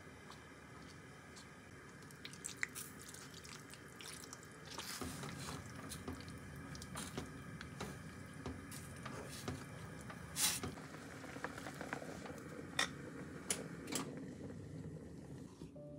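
Quiet kitchen food-preparation handling: scattered soft clicks, taps and squishes, a little busier from about five seconds in.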